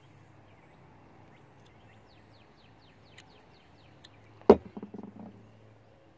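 A single sharp knock about four and a half seconds in, then a few lighter knocks and rattles, as a brass powder measure is handled and set down on a wooden shooting bench while a muzzleloader is loaded. Before it, a bird gives a quick run of short falling chirps.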